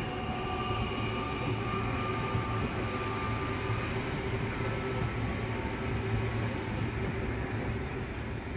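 Adelaide Metro 4000-class electric multiple-unit train passing at speed: a steady rumble of wheels on rail with faint whining tones above it.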